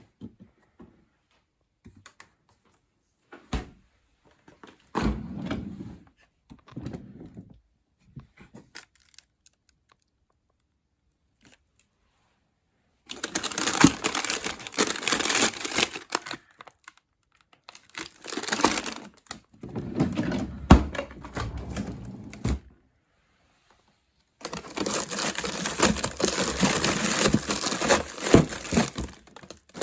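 Plastic food bags and packaging crinkling and rustling as they are handled, in three long stretches in the second half, after scattered light clicks and knocks.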